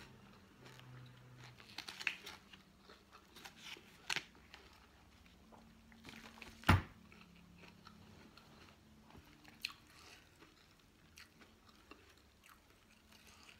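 A person chewing and biting food with scattered small crunches, typical mukbang eating sounds. One sharp crunch about halfway through is much louder than the rest.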